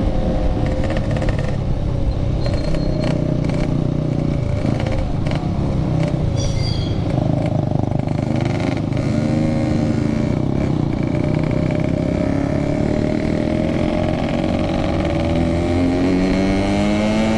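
Yamaha RX-King two-stroke motorcycle engine running on the road, its pitch rising gradually through the second half as it accelerates, over wind and road noise.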